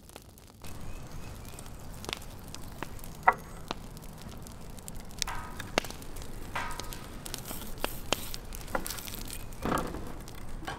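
Wood fire crackling in a steel smokeless fire pit, with scattered sharp clicks and light taps of food preparation and two brief ringing tones a little past the middle.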